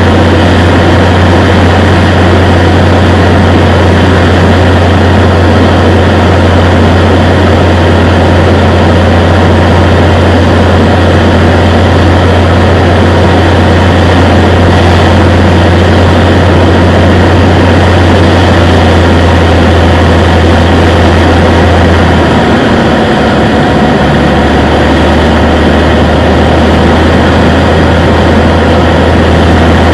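Cessna 182's piston engine and propeller running steadily on the landing approach, a loud drone heard from inside the cockpit. About 22 seconds in, the engine note drops to a lower pitch as power is reduced.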